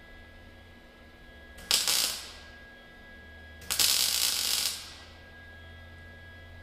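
Electric arc welding crackle in two bursts: a short tack weld about two seconds in, then a longer weld lasting about a second, fixing a part to a steel cart frame.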